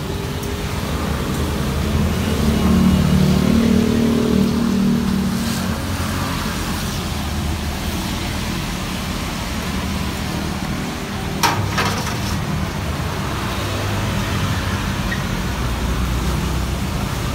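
Steady road traffic running past, with one vehicle's engine swelling louder a few seconds in, and a single sharp knock about eleven seconds in.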